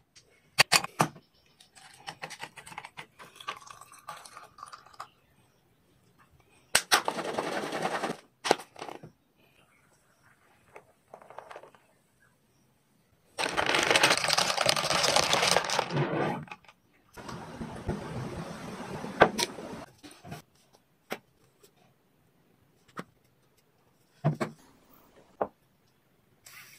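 Sounds of an iced coffee being made: scattered sharp clicks and knocks, and three stretches of rushing noise lasting one to three seconds each, the loudest about halfway through.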